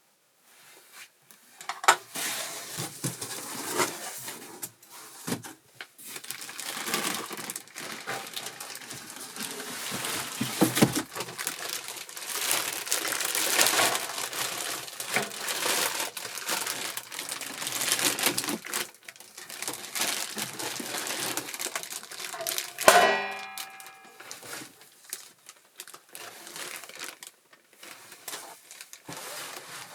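Packaging being handled as the contents are unpacked: plastic wrapping and packing material crinkling and rustling, with scattered clicks and knocks. A short squeak, the loudest sound, comes about two-thirds of the way through.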